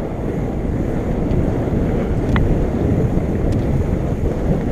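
Wind buffeting an action camera's microphone during a fast mountain-bike ride on a dirt trail, with a steady rumble of tyres and bike, and a few sharp clicks.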